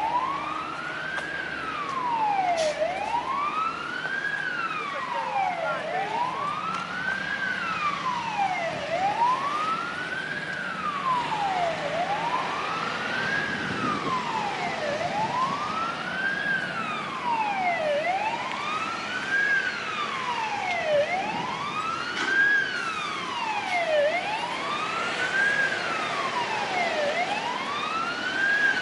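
Emergency vehicle siren on a wail, its pitch rising and falling in a steady cycle about every three seconds.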